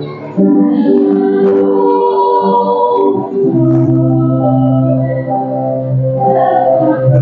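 Organ playing a hymn in held, changing chords, with voices singing along.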